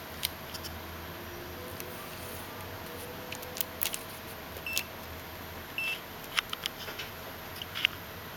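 Scattered clicks of buttons being pressed on an OWON HDS1022M-N handheld oscilloscope-multimeter as it is switched into multimeter mode, with two short high key beeps from the instrument about halfway through.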